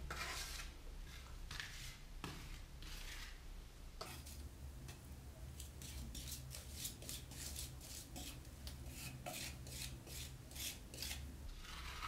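Small hand trowel scraping and spreading gypsum plaster on a wall in short strokes. The strokes are sparse at first and then come steadily, about two or three a second.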